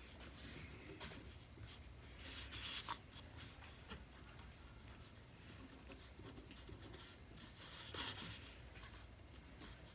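Faint scratching of writing on paper, coming in short spells, most noticeable about two and a half and eight seconds in.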